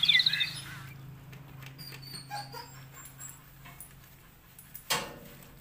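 A bird's quick chirping trill for about the first second, then faint whimpers from a wet Belgian Malinois being bathed, and one sharp knock about five seconds in.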